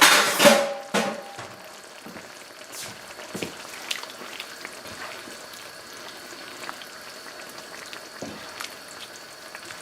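A brief loud splash and clatter as black olives are tipped into the pan. After it comes a steady soft bubbling with scattered small pops from a tomato-and-paprika sauce simmering in the pan.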